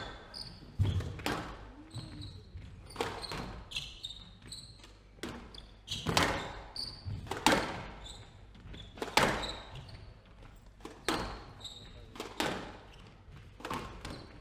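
A squash rally: the ball is struck by rackets and cracks off the walls, with sharp hits about once a second. Short high squeaks come from players' shoes on the wooden court floor.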